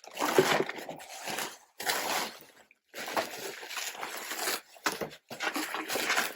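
Packing paper and wrapping rustling and crinkling in irregular bursts, with brief pauses, as things are dug out of a box.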